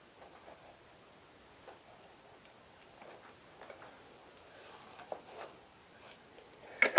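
Drafting tools handled on paper: faint scattered taps and clicks as a pencil, a plastic set square and a ruler are moved and set down, with a short pencil scratch a little past halfway and a sharper click at the very end.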